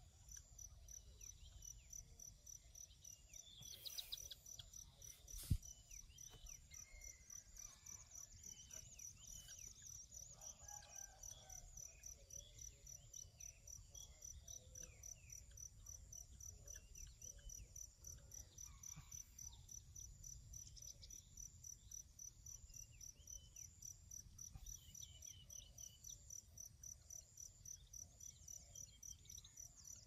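Crickets chirping in a fast, even pulsing rhythm, faint, with scattered short bird chirps and a low wind rumble. A single sharp click sounds about five and a half seconds in.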